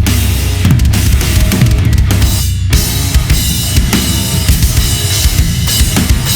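Gretsch USA Custom drum kit (22x16 kick, 12x8 rack tom, 16x16 floor tom, chrome-over-brass snare) played in a busy groove over a backing music track, with kick, snare and tom hits and a brief break about two and a half seconds in.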